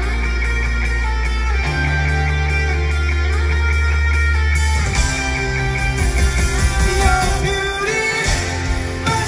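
Live rock band playing: electric guitar and bass hold sustained chords and notes, then drums and cymbals come in about five seconds in.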